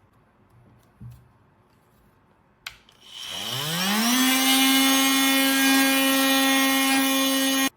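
An oscillating multi-tool fitted with a Starlock sanding attachment: a click about two and a half seconds in, then the motor whines up to speed over about a second and runs at a steady high pitch, cutting off suddenly at the end.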